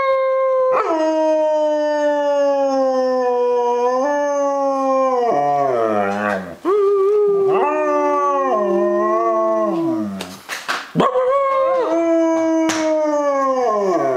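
German Shepherd howling: long drawn-out howls that hold a pitch and then slide down at their ends, broken by short pauses about six and ten seconds in.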